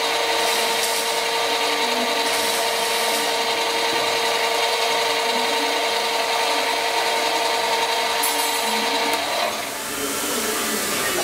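Brushless-motor hobby metal lathe running with a steady whine while turning down a piston, then switched off so the whine stops about nine seconds in.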